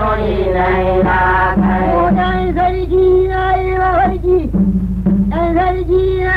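Hausa praise singing: a singing voice in long held, wavering notes over a low, pulsing accompaniment.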